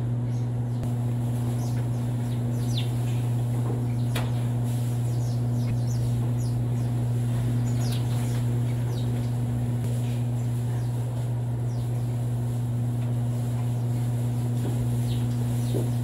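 A steady low hum runs throughout, with scattered short chirps of small birds inside the barn.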